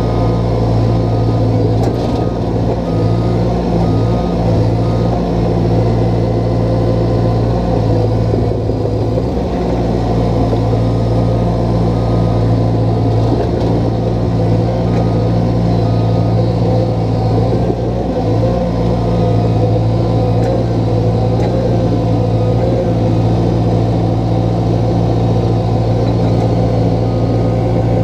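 Engine of a small tracked digging machine running steadily at working speed, heard up close from the operator's seat, with a few brief wavers in its note as the machine is worked.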